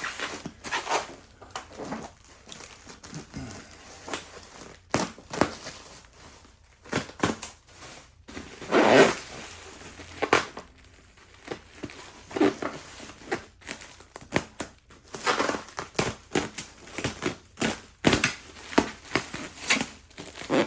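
Packing material being handled and pulled out of a shipping box: irregular crinkling and rustling with some tearing, the longest and loudest rustle about nine seconds in.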